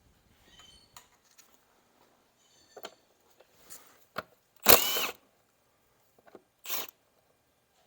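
Cordless 3/8-inch impact wrench spinning 10 mm fasteners loose in short bursts: a main half-second run about five seconds in and a shorter one near the end, with light clicks and tool handling between.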